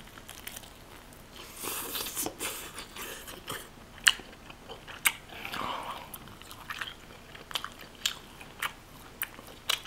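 Close-up eating sounds: a person biting and chewing lobster meat, with scattered sharp clicks and short crunchy smacks.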